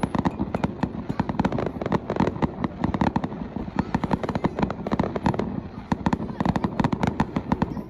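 Fireworks display going off: many bangs and crackles in quick, uneven succession, without a break.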